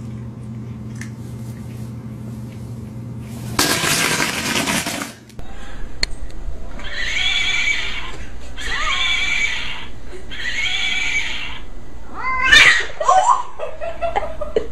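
A cat yowling three times, long drawn-out calls about a second each and evenly spaced, followed by a louder sliding cry near the end. A short rush of noise comes a few seconds before the calls.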